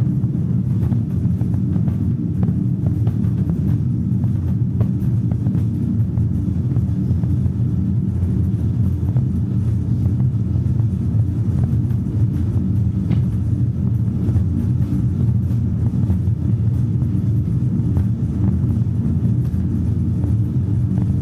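A steady, loud low rumbling drone with no beat or melody.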